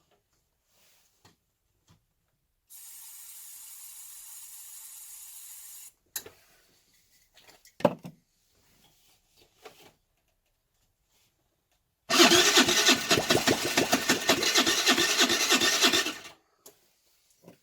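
Aerosol starting fluid sprayed in a steady hiss for about three seconds. Then a 50cc four-stroke scooter engine is cranked for about four seconds with a rapid, even pulsing, and stops without catching: the engine keeps flooding and fouling its plug, which the owner puts down to a gummed-up carburettor.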